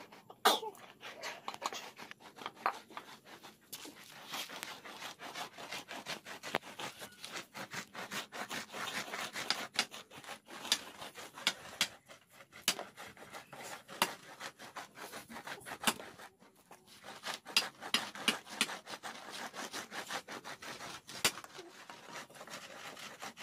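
Glass bottles rubbed and rolled back and forth over rice grains on woven bamboo trays, crushing the rice for pitha: an uneven run of rasping, scraping strokes with scattered sharp clicks.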